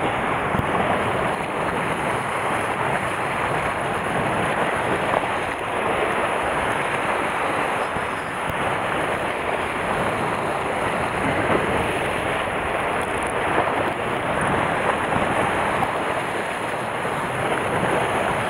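Sea surf washing steadily against a rocky shore, with wind on the microphone.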